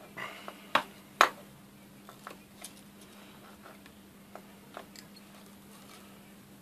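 Hand cutters snipping and working at the outer jacket of a multicore cable: two sharp snips about a second in, then softer clicks and scrapes, over a faint steady hum.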